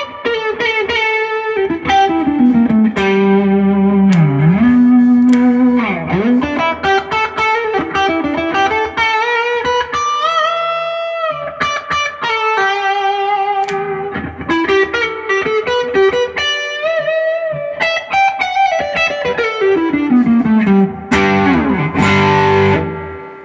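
2017 Duesenberg Starplayer Special electric guitar played through a Fender '65 Deluxe Reverb reissue amp. It plays a single-note lead line with string bends and vibrato and a descending run near the end, then a strummed chord that rings out.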